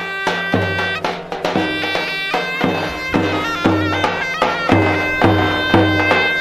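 Traditional Turkish folk music played loudly: a shrill, ornamented reed-pipe melody over a deep drum beating about twice a second.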